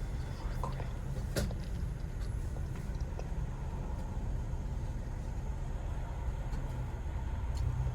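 Car engine idling, heard from inside the cabin as a steady low hum, with a short click about a second and a half in.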